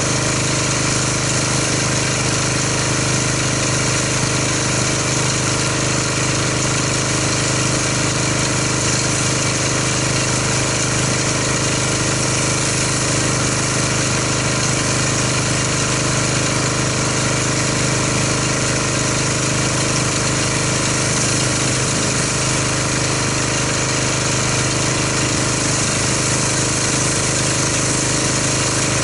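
Pressure washer's small engine running steadily under load while rinsing foam off a car, with a steady hiss above it.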